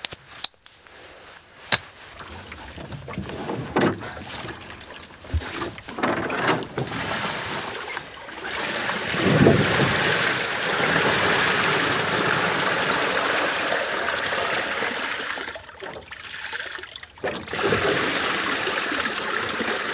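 Aluminium rowboat being handled and launched from wooden rails at the lake's edge: a few sharp knocks in the first seconds, then a long stretch of water splashing and sloshing around the hull.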